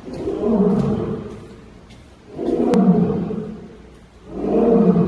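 Lion roaring: three long, deep roars in a row, each swelling and fading over about a second and a half.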